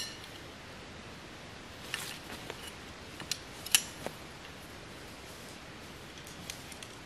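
Sharp clicks and light clatter of camping gear being handled, about half a dozen separate clicks with the loudest a little under four seconds in.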